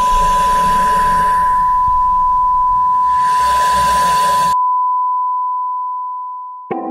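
Emergency alert broadcast tone: a single steady electronic beep near 1 kHz over a hiss. The hiss cuts off about four and a half seconds in, and the tone then fades away.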